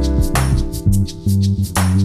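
Music: an instrumental track with a drum-kit beat, bass and sustained chords, with two loud drum hits about half a second in and near the end.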